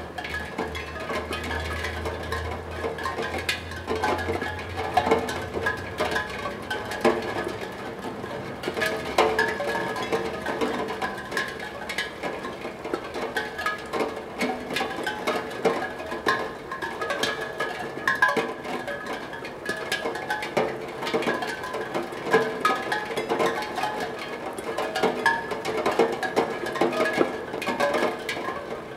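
Raindrops striking a steel tongue drum, setting its tongues ringing in random, overlapping notes, with a few pitches sounding again and again among the small taps of the drops.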